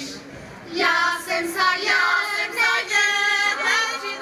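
Women's folk choir singing a Moravian folk song a cappella, together in dialect; after a short breath between lines, the singing starts again about a second in.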